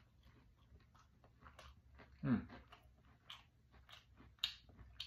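Close-up chewing of a crispy breaded fried chicken tender: a run of small crunches and mouth clicks, with a short low hum about two seconds in.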